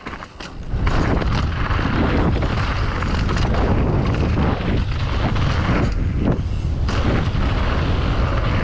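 Wind buffeting the camera's microphone as a downhill mountain bike descends a dirt-and-rock line at speed, with tyre rumble on the dirt; the rush jumps up about a second in as the bike picks up speed.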